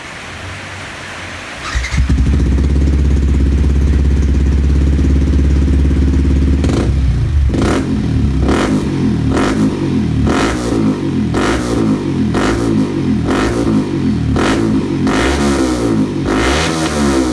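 Yamaha WR 155 single-cylinder engine running through a Smoke Muffler evo2 aftermarket exhaust. It comes in loud about two seconds in and idles steadily, then from about seven seconds it is revved in a run of short, quick throttle blips.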